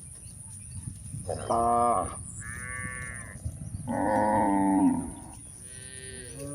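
Cattle mooing: about four calls in a row, some high and some lower, with the loudest a little past the middle.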